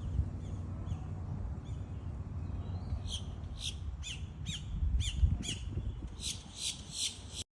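A bird calling repeatedly: from about three seconds in, a run of about ten short, high calls, each falling in pitch, about two a second. Under it runs a steady low rumble, and the sound cuts off suddenly near the end.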